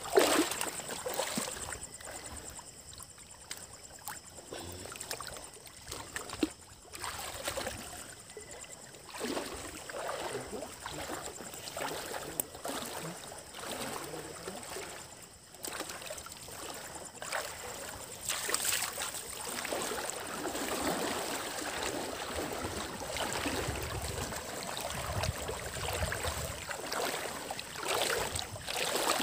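Shallow water sloshing and splashing as people wade through it and a fishing net is pulled in, with uneven swells that grow louder later on.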